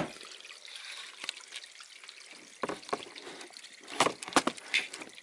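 Scattered light clicks and knocks from handling a G3 Enzo telemark binding with a boot in it, a few about two and a half seconds in and a quick cluster about four seconds in, over a faint steady hiss.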